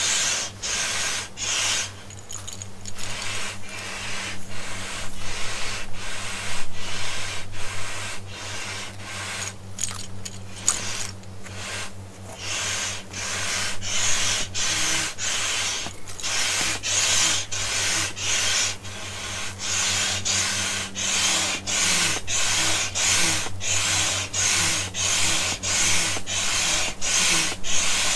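Rhythmic rubbing or hissing strokes, about two a second, over a steady low hum.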